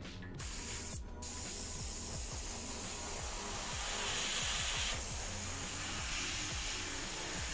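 Airbrush hissing as compressed air blows through it at the miniature, starting about half a second in, breaking off briefly around a second in, then running steadily.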